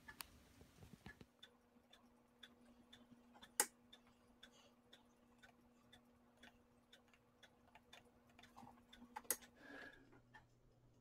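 Faint, regular ticking, about three ticks a second, with two sharper clicks, one about a third of the way in and one near the end, and a faint steady hum that stops near the end.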